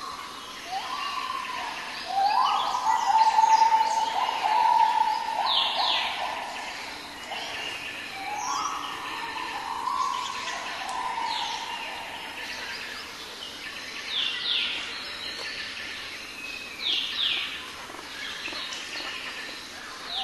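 Birds calling: a run of level whistled notes, loudest from about two to five seconds in, with short high sweeping chirps repeated over them.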